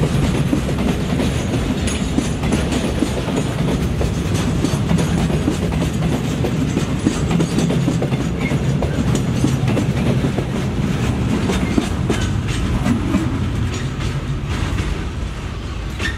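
Container freight train's wagons rolling past: a steady low rumble with wheels clattering over rail joints.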